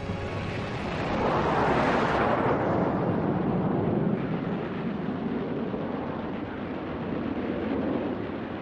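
Jet aircraft engine roar, swelling about a second in and then carrying on as a steady rumble that slowly fades.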